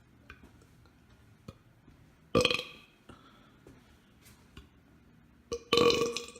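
A person burping on command: two loud, short belches about three seconds apart, the second slightly longer.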